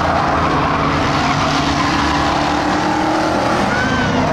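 Ford Crown Victoria stock cars racing: several V8 engines running together at speed, a steady, loud blended engine sound.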